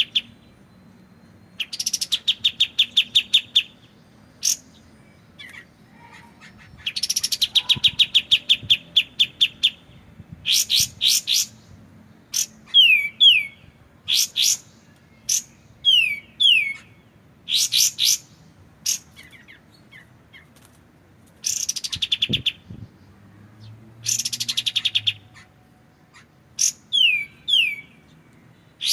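Kapas tembak, a bulbul, singing. It gives fast rattling trills of rapidly repeated notes, each lasting a second or two, that alternate with runs of sharp, falling, paired whistled notes.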